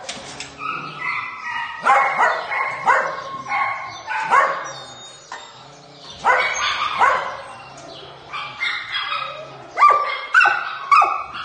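Several dogs behind wire-mesh pen doors barking and yipping, with short calls overlapping in repeated bursts and a brief lull about halfway through.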